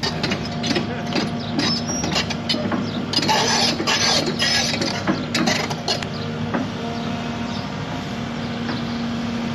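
Excavator engine running while an old barn is pulled down: many sharp cracks and snaps over the first six seconds, with a heavy crashing stretch about three to four seconds in and another a little after five. After that the engine runs on steadily.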